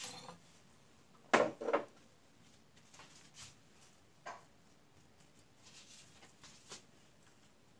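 Raw vegetable pieces being laid by hand in a glass baking dish: scattered soft knocks and taps, the loudest a quick pair about a second and a half in.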